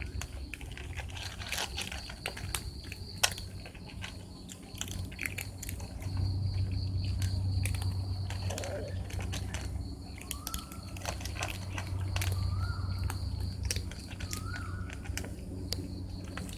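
Cats eating, chewing and crunching their food as a steady run of small irregular crunches, with a low hum underneath.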